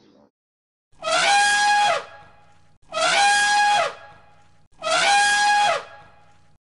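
Elephant trumpeting three times, each call about a second long, rising at the start, holding one pitch, then dropping away at the end. The three calls are identical, the same call repeated.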